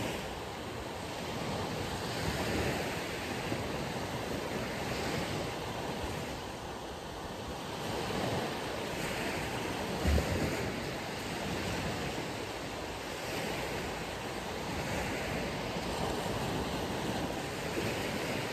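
Ocean waves washing onto a beach, swelling and ebbing every few seconds, with wind blowing across the microphone. A brief low thump about halfway through.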